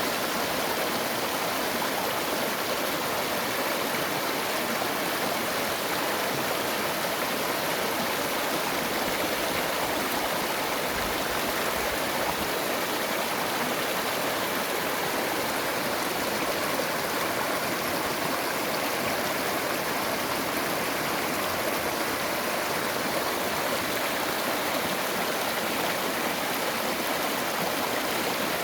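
Mountain valley stream rushing over rocks, a steady, even wash of water noise.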